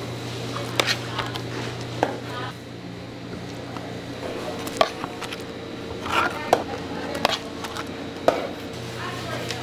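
Knife chopping on a cutting board: sharp knocks at uneven intervals, about one a second, over a steady low hum.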